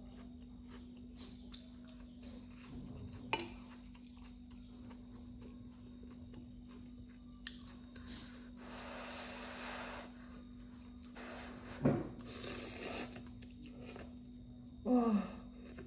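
A person eating instant noodles with a fork: chewing and slurping noodles in two longer hissy stretches in the second half, with a sharp knock of the fork on the pot just before the second one. A steady low hum runs underneath.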